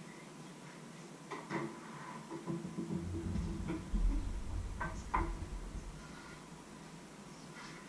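Scattered knocks and handling clatter as a knife works on a wooden cutting board, with a low rumble of movement through the middle.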